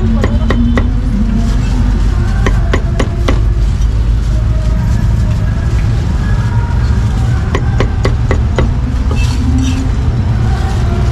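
Meat cleaver chopping meat, sharp strikes coming in irregular clusters, over a steady low rumble of street traffic and faint background voices.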